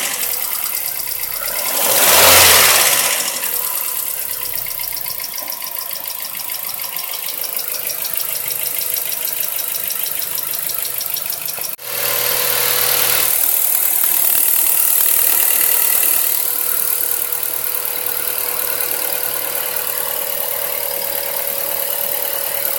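Mazda 3 1.6 four-cylinder petrol engine idling with a rhythmic valve tapping, caused by excessive clearance in two valves. About twelve seconds in, a cut leads to the same engine after valve adjustment, running quietly without the tap. A brief louder swell comes about two seconds in.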